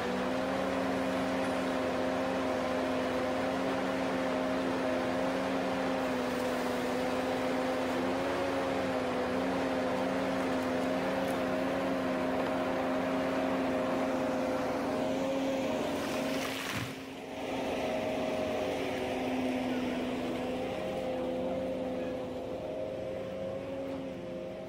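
Ponsse Ergo forestry harvester running under load: a steady diesel-and-hydraulic drone with a constant hum while the harvester head works a standing tree, dipping briefly about two-thirds of the way through.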